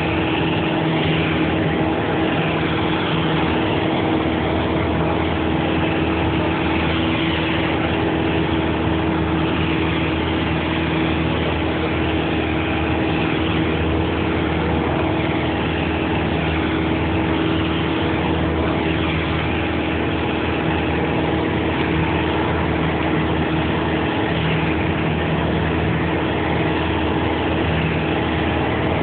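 Light aircraft's piston engine and propeller heard from inside the cockpit: a steady, unchanging drone with a constant hum and a rushing wind-and-airframe noise over it.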